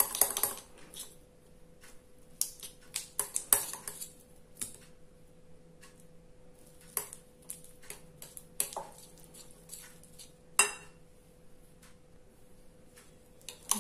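Steel wire balloon whisk clicking and scraping against the bowl in irregular strokes as it creams soft butter with brown sugar.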